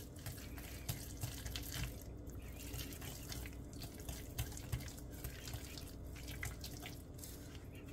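A wire whisk stirring a thick, wet mix of carrot purée, sugar and egg yolks in a glass bowl. It makes faint wet squishing, with light, irregular clicks of the wires against the glass.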